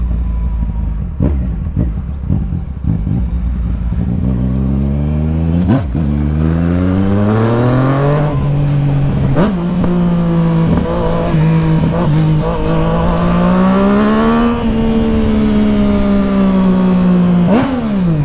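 Motorcycle engine pulling away from low revs, its pitch climbing steadily for a few seconds. It then holds an even cruising note, rises again about two-thirds of the way through, and drops sharply near the end before climbing once more.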